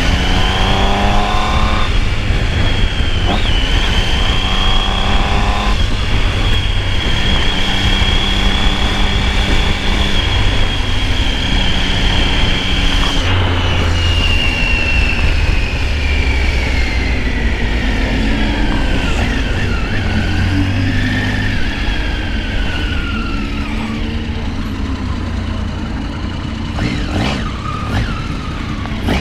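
Motorcycle engine pulling hard through the gears at speed, with wind rush over the microphone: the engine note climbs in quick steps in the first couple of seconds and again around five seconds in. A high whine runs over it and slowly drops in pitch, and the engine eases off near the end as the bike slows.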